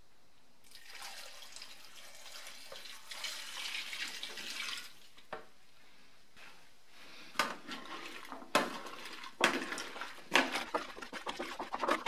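Water poured from a plastic measuring jug into a plastic fermenting bucket of diced pumpkin, splashing onto the cubes for about four seconds. From about seven seconds in, a spoon stirs and scrapes through the pumpkin pieces with sharp knocks.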